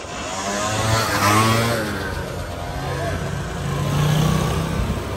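Small motor scooter engine passing close by about a second in, its pitch shifting as it goes past, then an engine hum growing louder around four seconds as another scooter comes near.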